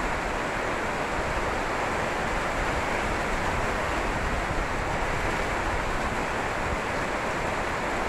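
Steady heavy rain pouring down in a windstorm, an even rushing hiss with no breaks.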